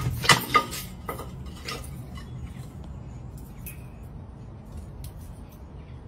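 A plant pot knocked off a bench hits paving stones with two loud clatters within the first second, followed by a few lighter knocks as it settles.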